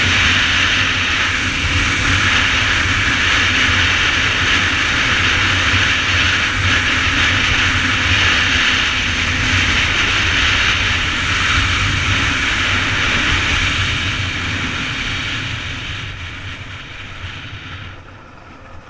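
Wind rushing over the microphone of a motorcycle-mounted camera at high highway speed, with the sport bike's engine running steadily underneath. The rush fades gradually over the last few seconds as the bike slows.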